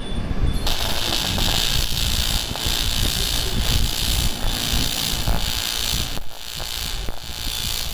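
TIG welding arc on aluminium: a loud, even hiss that starts abruptly under a second in and stops about six seconds in, over a steady low rumble.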